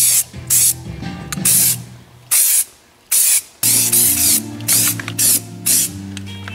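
Truck bed coating being sprayed onto a van's lower panels in short hissing bursts, about two a second, with a pause a little past two seconds in. Background music plays underneath.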